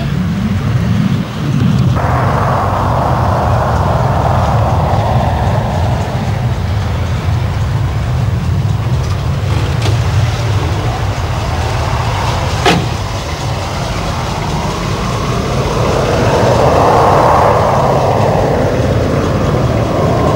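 A large sedan's engine running steadily with a low rumble. A rushing noise comes in suddenly about two seconds in and swells again near the end, and there is one sharp click a little past the middle.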